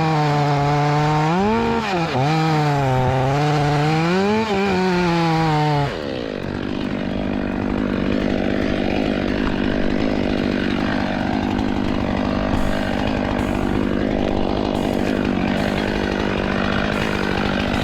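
Stihl MS500i fuel-injected two-stroke chainsaw revving, its pitch rising and falling for about six seconds. It then holds a steady high speed while cutting through wood, with chain-and-wood noise over the engine.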